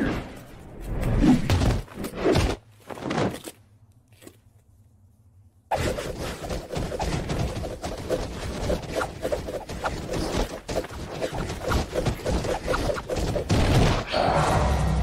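Anime fight sound effects: four loud, sudden strikes and hits in the first three and a half seconds, then, after a pause of about two seconds, a fast, dense run of blows.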